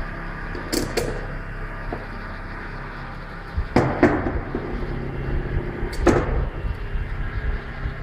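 A few sharp knocks or clicks: a pair about a second in, another pair near four seconds, and one near six seconds, over steady background noise that grows a low rumble from about halfway.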